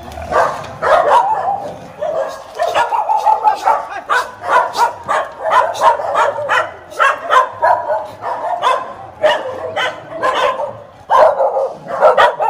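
A pack of dogs barking, with quick, overlapping barks and yips that keep up without a break.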